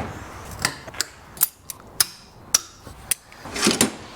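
A series of sharp metallic clicks and knocks from hand tools on the axle, about eight irregularly spaced strikes.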